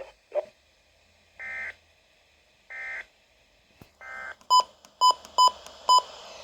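Weather radio alert opening: three short buzzy data-tone bursts of the kind that carry the digital SAME alert header, then four sharp electronic beeps in quick succession. A steady radio hiss follows.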